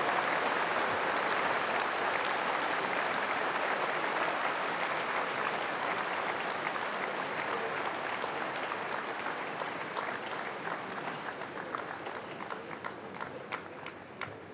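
Arena audience applauding. The clapping fades steadily and thins to a few scattered single claps near the end.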